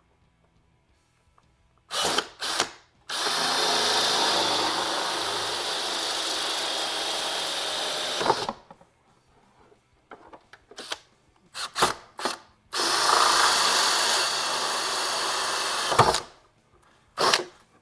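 Cordless drill spinning a 1-inch hole saw through a plastic interior trim panel. After two short bursts it cuts steadily for about five seconds. A few brief trigger blips follow, then a second steady cut of about three seconds and one last short burst near the end.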